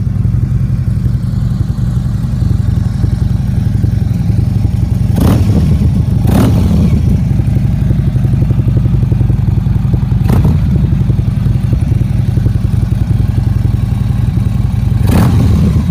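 Harley-Davidson CVO Street Glide's 110 cubic inch (1800 cc) V-twin idling steadily, with four brief louder bursts about 5, 6, 10 and 15 seconds in.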